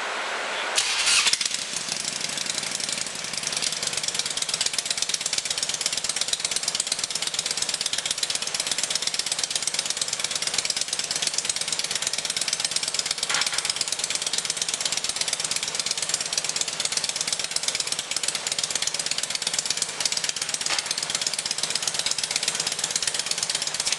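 Motorcycle engine running steadily with a rapid, even pulse, after a short loud burst about a second in.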